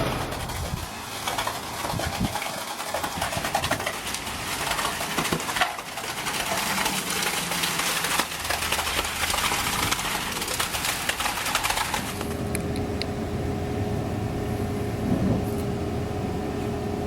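Cement truck running during a concrete pour, with a steady rushing noise that changes abruptly about twelve seconds in to a quieter hum.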